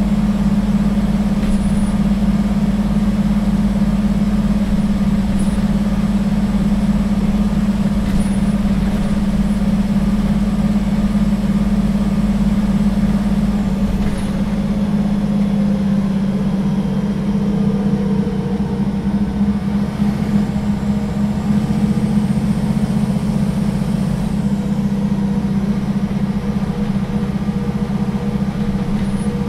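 2011 Solaris Urbino III 12 city bus under way, its diesel engine droning steadily; about halfway through the engine note shifts.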